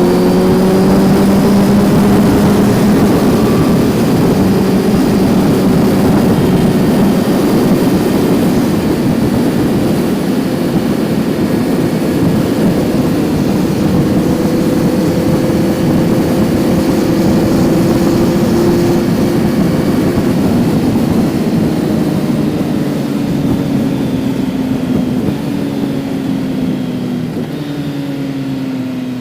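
Kawasaki Z900's inline-four engine running under way on the road, heard onboard with a haze of wind and road noise. The engine note holds fairly steady, then eases off and falls in pitch near the end.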